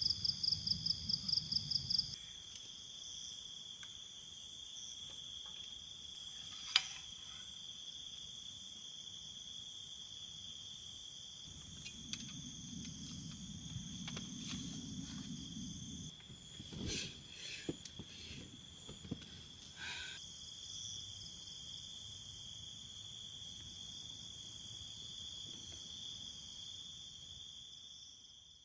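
Night insect chorus of crickets and other insects trilling steadily at several pitches, with a fast pulsing chirp in the first two seconds. Guitar music ends about two seconds in, and a few soft knocks and rustles come between about 12 and 20 seconds.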